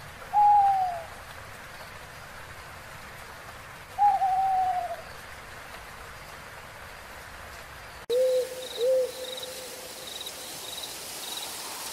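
Owl hooting: two long hoots that fall slightly in pitch, about four seconds apart. After a sudden cut come two shorter, lower hoots, with a faint high chirping repeating about twice a second behind them.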